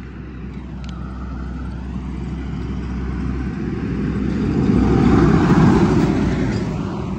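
A road vehicle passing on the highway: its tyre and engine noise grows louder, peaks about five seconds in, then fades away.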